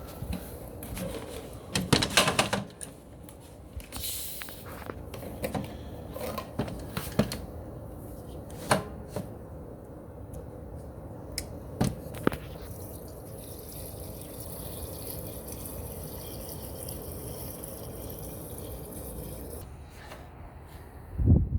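Clicks and knocks of small parts and tools being handled during carburettor work on a snowblower. In the second half a steady high hiss runs for about six seconds and stops, and a heavy thump comes at the end.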